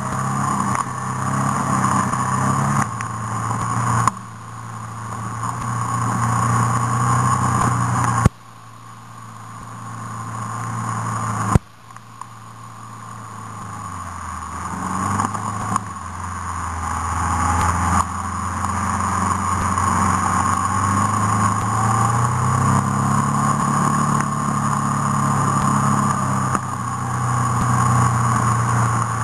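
Off-road vehicle engine pulling along a dirt track: the revs build steadily and then fall away sharply about four, eight and twelve seconds in, the later two drops with a click, like gear changes, before it runs more evenly with slow rises and falls.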